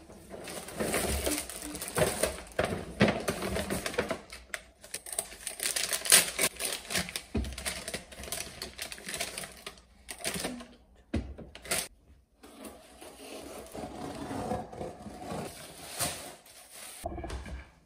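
Paper shopping bag rustling and plastic-wrapped groceries crinkling as they are unpacked, with irregular clicks and a few dull knocks as items are set down on a counter. Near the end, cardboard box flaps and bubble wrap being handled.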